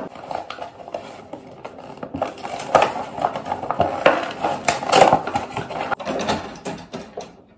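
A cardboard box being opened and handled: continuous rustling and crinkling with small clicks and rattles. Near the end the lid of a single-serve pod coffee maker is lifted open.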